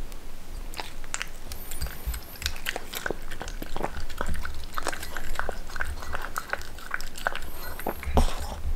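A miniature pinscher eating from a ceramic bowl: a quick, irregular run of wet licks and chewing clicks as it laps the leftovers clean.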